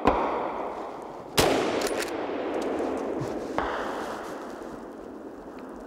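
Three rifle shots about a second and a half to two seconds apart, fired at a running wild boar. Each crack rolls on as a long echo that fades slowly through the forest.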